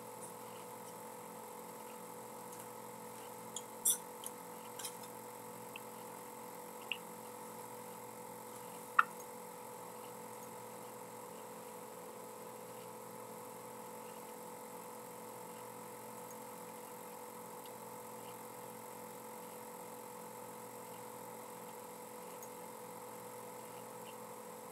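Steady electrical hum with thin constant tones, broken by a few sharp clicks: a small cluster about four seconds in and a single louder click about nine seconds in.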